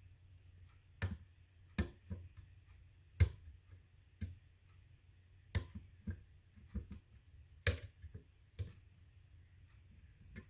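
Scattered sharp clicks and taps, about a dozen at irregular intervals, the loudest a little over three seconds in and near eight seconds; no alarm is sounding.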